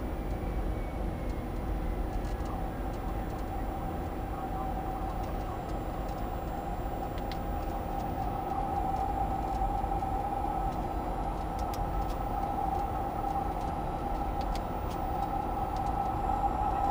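An airliner's auxiliary power unit running, with air-conditioning air from the APU bleed flowing into the cockpit. It makes a steady rushing hum with a whine that grows a little stronger about halfway through.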